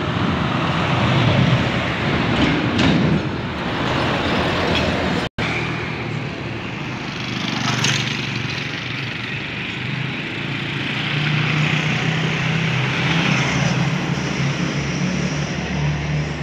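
Road vehicle engine noise: a small diesel dump truck drives past in the first few seconds, the sound cuts out for an instant about five seconds in, and then a steady engine hum continues.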